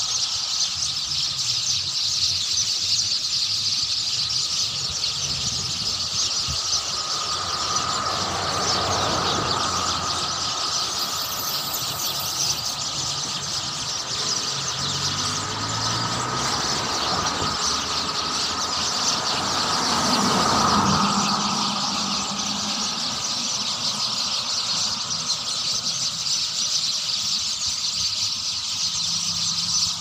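A large flock of small birds chirping continuously in a tree canopy, a dense chorus of many overlapping high calls. A low rumble swells up to a peak about twenty seconds in and fades again beneath the chirping.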